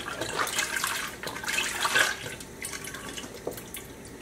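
Beef broth pouring from a carton into a hot pan, splashing and trickling; the pour thins out about two seconds in and then goes quiet, leaving only a faint simmer.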